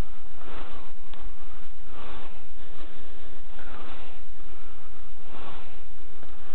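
A person moving fast through woodland undergrowth: a rhythmic noisy swish about every second and a half as body and clothing push through the brush.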